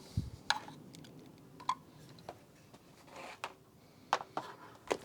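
Small hard parts of an e-bike conversion kit being handled and set down: a soft low thump at the start, then a series of sharp, irregular clicks and light knocks, with a brief rustle a little after three seconds in.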